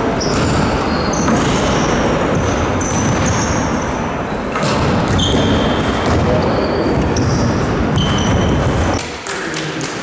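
Basketball game noise in a large gymnasium: the ball bouncing on the court, with short high sneaker squeaks. It drops away sharply near the end.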